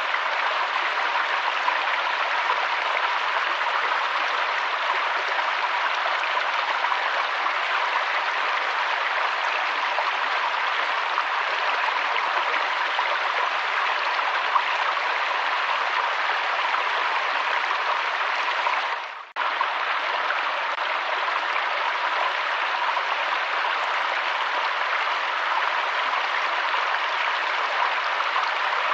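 Waterfall rushing steadily, an even hiss of falling water that dips out briefly about two-thirds of the way through.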